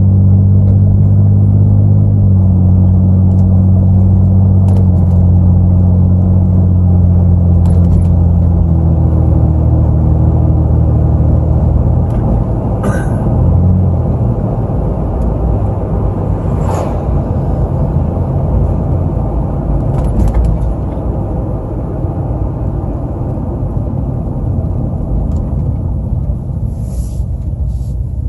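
Vehicle engine and road rumble heard from inside the cab: a steady engine hum for the first dozen seconds, then a rougher rumble as it drives on.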